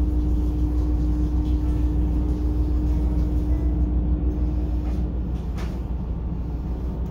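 Echigo Tokimeki Railway's ET122-1000 series diesel railcar standing with its engine idling, a steady low rumble heard inside the passenger cabin. A steady hum runs along with it and stops about five seconds in.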